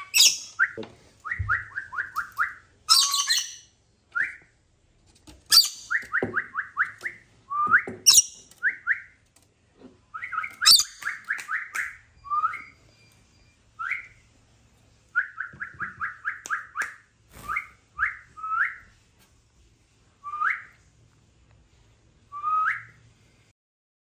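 Rainbow lorikeet calling: quick runs of short rising chirps, several a second, broken by loud shrill screeches in the first half, then thinning to single chirps a second or two apart.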